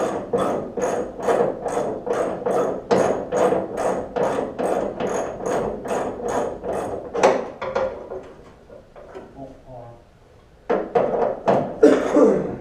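Hand ratchet wrench clicking in a steady rhythm, about three clicks a second, as a bolt is turned. It stops after about seven seconds and starts again about two seconds before the end.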